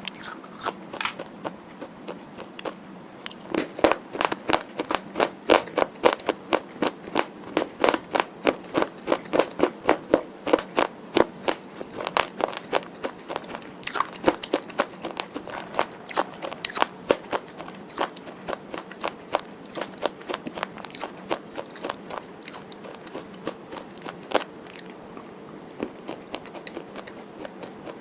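Close-miked crunchy chewing: a quick run of crisp crunches, about three a second, thinning out in the second half.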